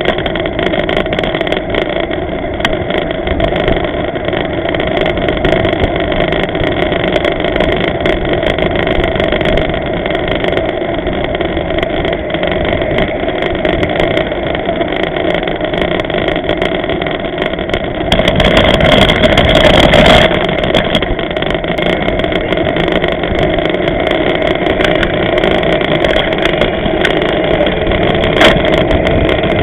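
Steady wind and rolling noise on a bicycle-mounted camera's microphone while riding. It swells louder for about two seconds around two-thirds of the way through, and there is a single sharp click near the end.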